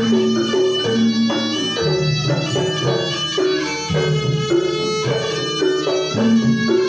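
Live Javanese jaranan ensemble music: a nasal reed melody, the slompret typical of jaranan, over kendang drums and repeated gong-chime notes.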